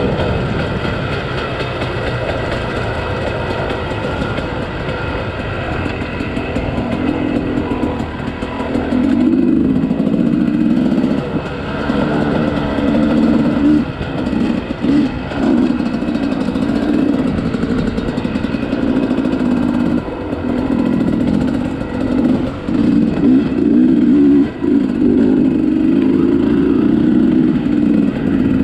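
Two-stroke dirt bike engine under way on rough trail, the throttle opening and closing. It gets louder about a third of the way in, with several brief drops as the throttle is chopped and picked up again.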